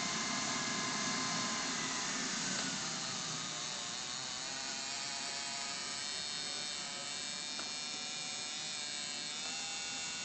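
Small gas turbine engine of a radio-controlled helicopter running with a steady high whine. Its pitch drops about three seconds in, holds, and rises slightly near the end.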